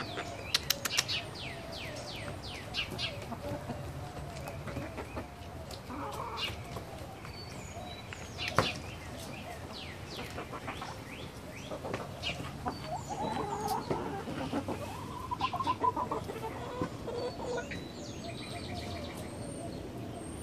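Backyard hens clucking and calling as they feed and chase each other over scraps, with scattered short chirps and one sharp click about eight and a half seconds in.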